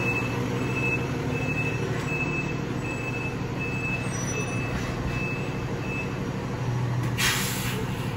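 Fire engine backing up: its back-up alarm beeps about one and a half times a second over the diesel engine idling, the beeping stopping about six seconds in. About a second later comes a short hiss of air from the air brakes.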